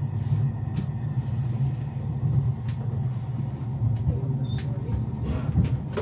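Matterhorn Gotthard Bahn train running, heard from inside the carriage: a steady low rumble with occasional sharp clicks.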